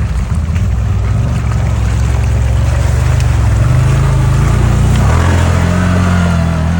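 BMW E46's engine running, its pitch rising about halfway through and stepping up again around five seconds in.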